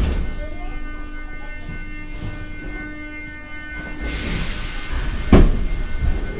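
Inside a metro car: a steady faint electrical hum, then a rising rumble and one sharp, loud thump about five seconds in as the train gets moving.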